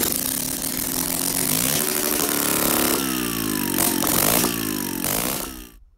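Sachs KM37 single-rotor air-cooled rotary (Wankel) engine catching on a rope pull and running loud with no muffler fitted. It revs up and down several times, then dies away near the end.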